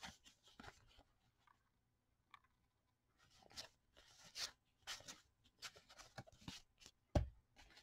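Soft swishes of O-Pee-Chee hockey cards sliding across one another as a stack is thumbed through card by card, about two a second. One dull knock near the end.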